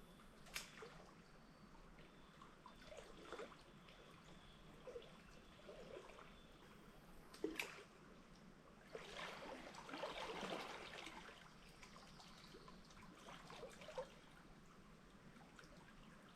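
Faint trickle of a shallow stream, with scattered light knocks and a louder patch of noise about nine to eleven seconds in.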